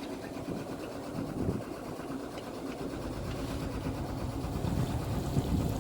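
A boat's engine running steadily with a fast, even beat.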